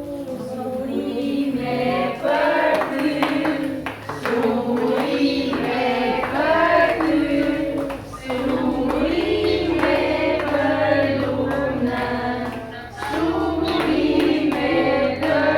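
Several voices singing a song together over musical accompaniment.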